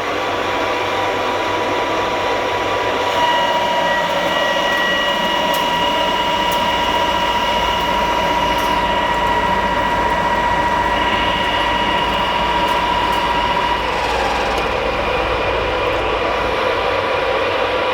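Semco L500 centre lathe running under load while taking a 5 mm cut, its spindle drive giving a loud, steady whine over mechanical noise. The whine changes in pitch about three quarters of the way through.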